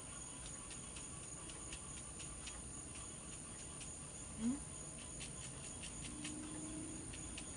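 A paintbrush tapping paint onto acrylic paper to stipple foliage, a series of light, uneven taps over a faint steady hiss. A brief low murmur comes about four and a half seconds in.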